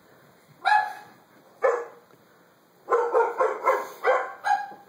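A Doberman barking: two single barks about a second apart, then a quick run of barks, about three a second.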